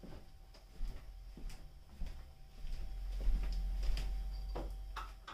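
Light kitchen handling sounds: scattered clicks and soft knocks, like a cupboard or drawer being worked, with a low rumble swelling about three seconds in and a sharper click near the end.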